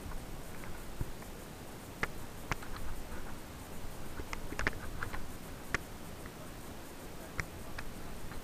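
Mountain bikes moving slowly along a narrow dirt trail: scattered sharp clicks and light rattles over a low, steady rumble.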